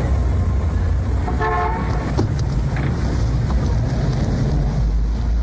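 Steady low rumble of street traffic and a car engine, with a short car horn toot about a second and a half in and a brief click just after.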